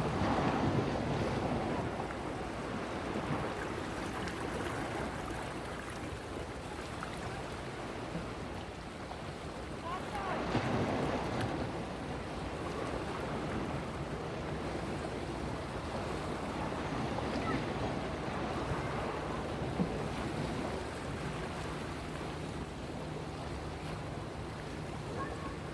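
Sea water rushing and washing, with wind on the microphone; the wash swells at the start and again about ten seconds in.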